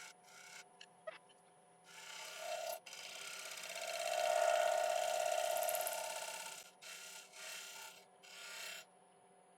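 Spear point scraper taking a light scraping cut on Monterey cypress spinning on a wood lathe, in several short passes with the longest and loudest near the middle.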